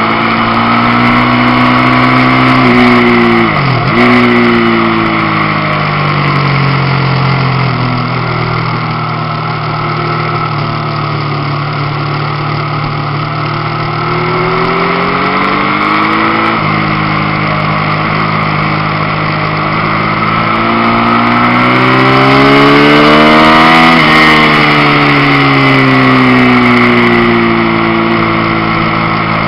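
Motorcycle engine heard from an onboard camera at track speed, its pitch climbing under acceleration and falling off when the throttle closes. About four seconds in it dips sharply and comes back up, and later it drops suddenly twice at the gear changes, falling away near the end. Wind rushes on the microphone throughout.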